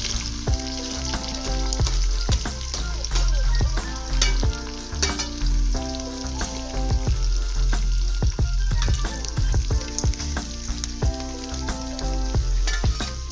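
Hot red palm oil frying and sizzling in a pot as handfuls of dry fish are dropped in, with occasional clicks and clatter, over background music with steady chords and a bass beat.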